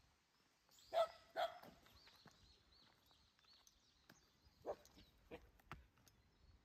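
Temple guard dog barking warily at an approaching stranger: two loud barks about a second in, then a few fainter barks later.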